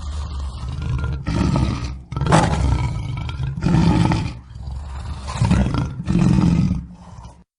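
Lion roaring: a run of deep, loud roars about a second apart that trail off and stop shortly before the end.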